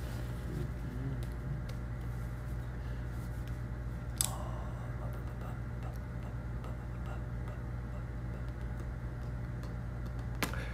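A quiet pause in a room with a steady low electrical hum, a faint murmured voice in the first second or so, and a single sharp click about four seconds in.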